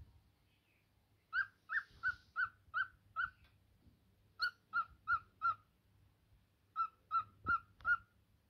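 Cockatiel singing: three runs of short, evenly spaced whistled notes, about three a second, with brief pauses between the runs.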